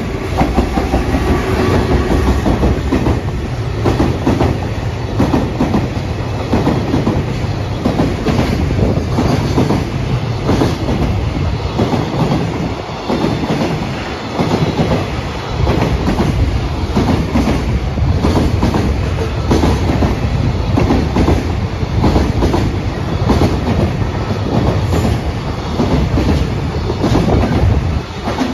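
Freight train hauled by an EF210 electric locomotive passing close by. The locomotive goes by first, then a long string of container flatcars rolls past with a steady rumble and repeated clickety-clack of wheels over rail joints.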